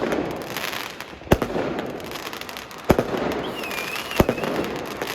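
Fireworks going off: three sharp bangs about a second and a half apart, with continuous crackling between them.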